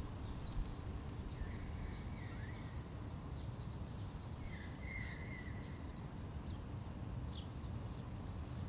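Steady low outdoor background rumble with small birds chirping now and then, including two short warbling calls about a second and a half in and again around four and a half seconds in.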